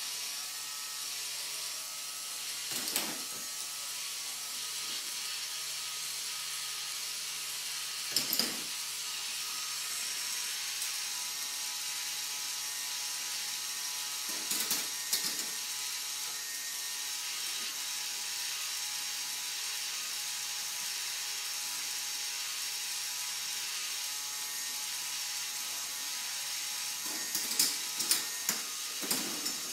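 K'nex ball-lift mechanism running: a steady motorised whir of plastic gears and parts, broken four times by bursts of plastic clicking and clatter as balls move through the lift.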